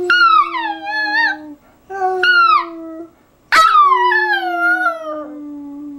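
Pet dog howling on cue, three long howls that each slide down in pitch, the third the loudest and longest.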